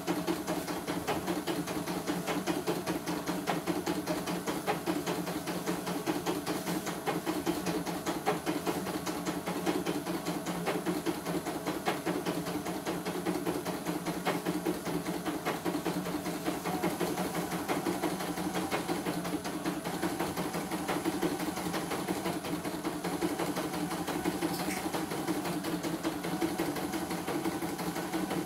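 CNY E900 computerized embroidery machine, casing open, stitching steadily in a post-repair test run: a rapid, even run of needle strokes.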